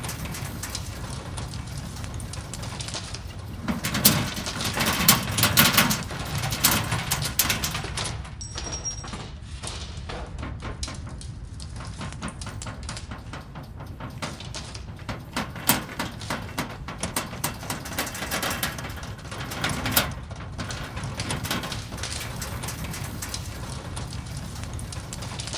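Earthquake rumbling sound effect: a continuous deep rumble with dense rattling and crackling over it, swelling louder about four to seven seconds in and again briefly near twenty seconds.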